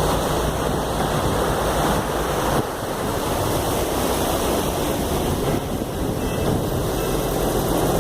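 Steady rushing of wind on the microphone and water along the hull of a moving harbour ferry, with a low engine hum underneath that eases slightly about two and a half seconds in.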